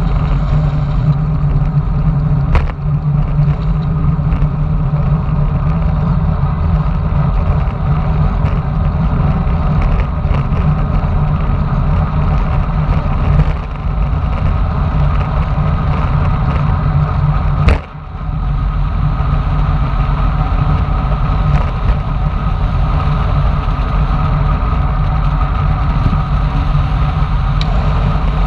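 Wind rushing over a bike-mounted camera's microphone on a fast road-bike descent, a steady, heavy low rumble, with one sharp knock past the middle.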